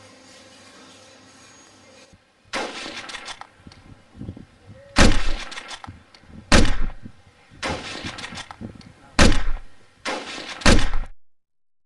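A series of loud, heavy thuds with a deep boom, about one every second and a half, starting about two seconds in over a faint steady background. They cut off abruptly near the end, as dramatic impact sound effects in a film score would.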